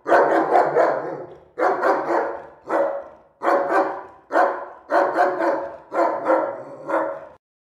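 A large dog barking in rapid volleys of two to four barks with short pauses between them. The barks ring off the hard walls of a small bare room and stop abruptly near the end.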